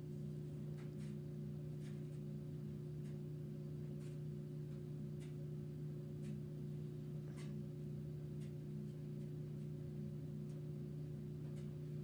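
Steady low hum of a machine or appliance, made of several fixed low tones, one of them pulsing, with faint light clicks about once a second.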